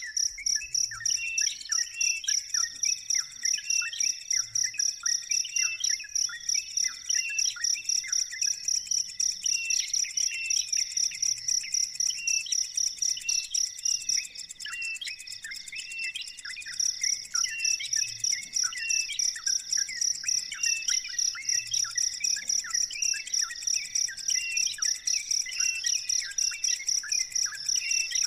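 A cricket chirping in a fast, steady pulse, pausing for a couple of seconds about halfway, over many short, high, falling bird chirps.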